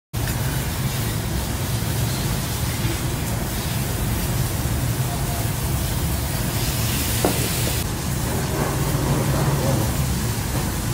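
Steady restaurant noise at a grill counter: a low hum with an even hiss over it and faint voices in the background. The hiss swells briefly about seven seconds in.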